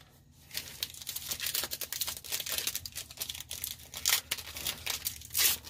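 Foil wrapper of a 2019 Score football card pack crinkling as it is handled and opened: a dense, irregular run of crackles starting about half a second in.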